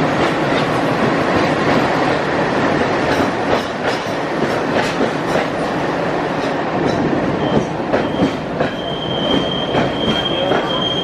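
Passenger train rolling past at close range: a steady rumble of wheels on rail with irregular clicks over the rail joints, and a high, steady wheel squeal that sets in about eight seconds in.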